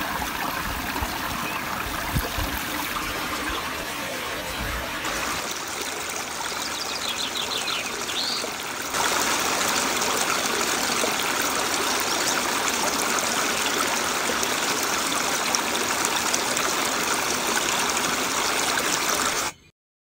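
Small shallow forest creek running over rocks, a steady trickling rush that gets louder about nine seconds in and cuts off abruptly near the end.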